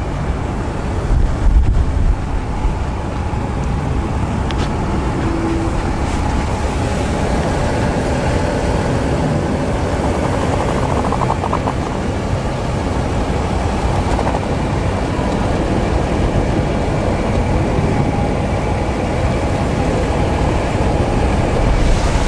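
2016 Nissan Murano's 3.5-litre V6 idling: a steady low rumble with a faint even hum.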